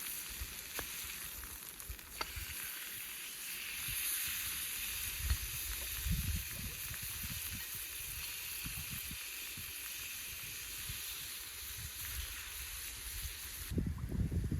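Steak sizzling over a campfire: a steady frying hiss with a couple of sharp pops in the first few seconds, stopping suddenly about a second before the end.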